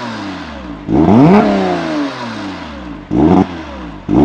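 Porsche Boxster RS60 Spyder's 3.4-litre flat-six revving through its sports exhaust: a sharp rev about a second in that falls back toward idle, then a shorter throttle blip about three seconds in.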